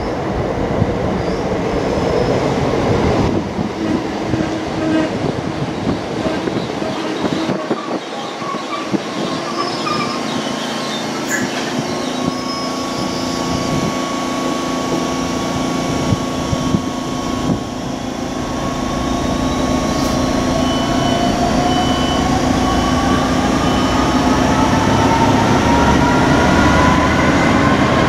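Station rail noise: an electric multiple unit on the adjacent track pulls away with a traction-motor whine that rises steadily in pitch over the last several seconds. Under it, the deep two-stroke diesel rumble of an approaching Class 66 freight locomotive grows louder near the end. A steady high tone holds through the middle.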